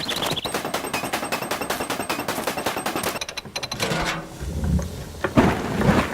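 A designed sound-effects track: a rapid, even run of sharp cracks, about ten a second, for about three seconds, then a low rumble with a couple of heavy hits near the end.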